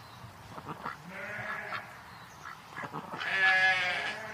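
Animal calls: a short call about a second in, then a louder call lasting about a second near the end, with a few clicks before them.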